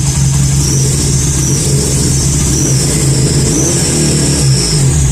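Motorcycle engine running steadily through an exhaust fitted with a turbo-simulator whistle, which adds a thin, high, slightly wavering whistle over the engine note.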